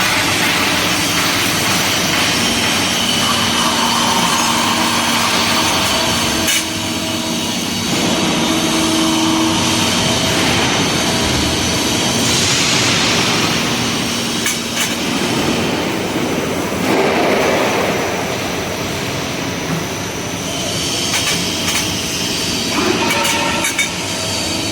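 CNC bending machine running: a steady mechanical noise with hums and a few sharp clicks, swelling louder for a moment about halfway through.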